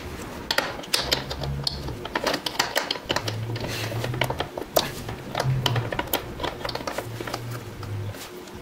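Quick, irregular clicking and tapping of hand tools on metal parts, with a low hum coming and going underneath.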